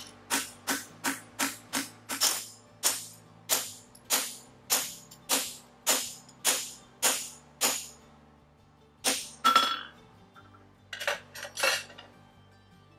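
Hand hammer striking a punch set in the fullering of an aluminum horseshoe on the anvil, punching its nail holes. Sharp, ringing metallic strikes come about three a second at first, then settle to a steady run of about one and a half a second. After a pause come two strikes, then a few more near the end.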